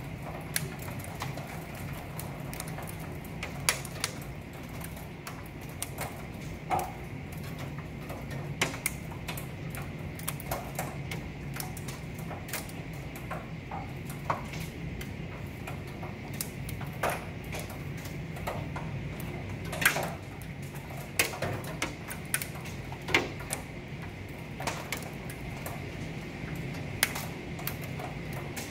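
Hail and heavy rain striking the window glass in irregular sharp ticks, a few a second, some much louder than others, over a steady low hum.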